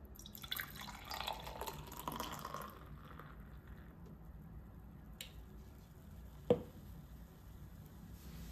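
Liquid running in a kitchen for about two and a half seconds, followed later by a faint click and a single sharp knock.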